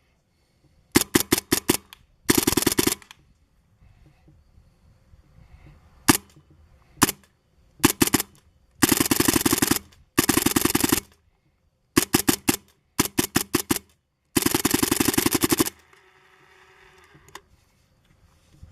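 Planet Eclipse DC1 Autococker paintball marker firing: single pops and rapid strings of shots as fast as the trigger is pulled, set to uncapped semi-auto as far as the owner believes. The longest string, about a second and a half, comes near the end.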